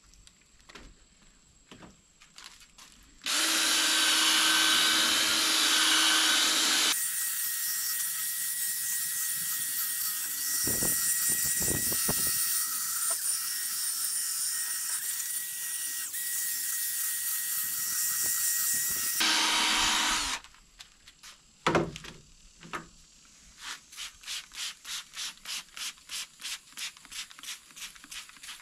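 Cordless drill spinning a coarse-grit sanding disc as it wet-sands a plastic headlight lens, running for about 17 seconds; its sound changes about seven seconds in, when the disc is worked on the lens, and changes back just before it stops. Near the end, a spray bottle's trigger is pumped in quick squirts, about three a second.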